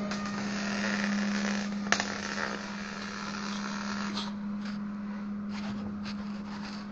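Welding arc crackling on sheet steel, stopping about four seconds in, followed by a few scattered clicks. A steady low hum runs underneath throughout.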